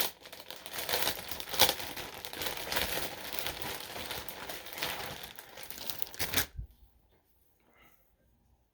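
Packaging crinkling and rustling as a shirt is unwrapped and handled, with sharper crackles now and then; it stops abruptly about six and a half seconds in.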